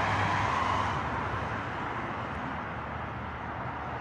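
Road traffic: cars driving past on a city street, the tyre and engine noise louder at first and dying down as the road clears near the end.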